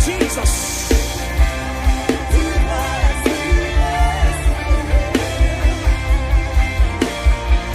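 Atmospheric worship music: sustained keyboard chords held over a steady, pulsing low beat.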